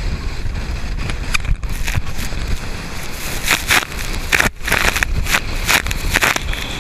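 Inflatable dive boat running fast through chop: wind buffeting the microphone under a steady rumble, with repeated hissing surges of spray breaking over the bow in the second half.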